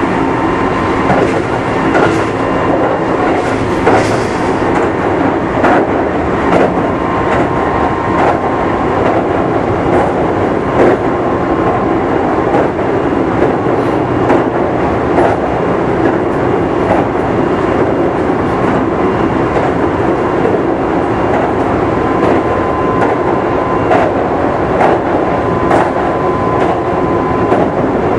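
Kintetsu 5200 series electric train with GTO-VVVF traction running at a steady speed: a constant rumble with a steady motor tone, and the wheels clicking over rail joints every second or so.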